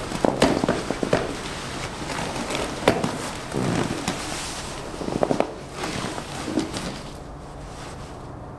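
Synthetic sleeping bag rustling, with sharp clicks and knocks from a folding camp cot's frame as a person shifts and sits up on it. The handling is busiest for the first six seconds, then dies down.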